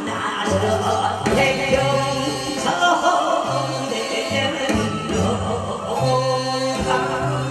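A man singing a trot-style song into a microphone over amplified backing music, with a bass line that steps from note to note.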